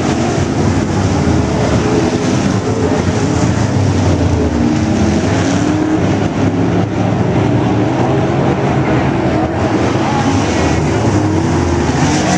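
A pack of IMCA Modified dirt-track race cars at speed, their V8 engines overlapping and their pitches rising and falling as the drivers work the throttle through the turns and down the straights.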